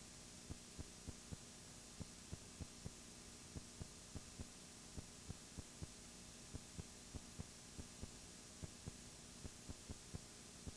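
Faint steady electrical hum and hiss on the recording, broken by soft low pops at an uneven pace of about two or three a second. No crowd or ringside sound.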